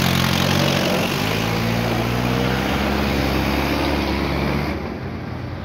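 Mahindra Arjun Ultra-1 555 DI tractor's diesel engine running steadily close by while hauling a loaded soil trolley, its pitch shifting slightly about a second in and the sound dropping a little near the end.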